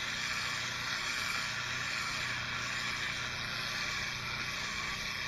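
Pressure washer turbo (rotating) nozzle blasting a jet of water onto wet monoblock paving: a steady hiss of spray, with a low steady hum underneath.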